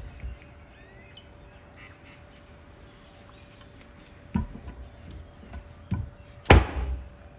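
Mallet blows on locking pliers clamped to a screw in a carburettor plug, knocking the plug out: a few light knocks, then one hard blow about six and a half seconds in.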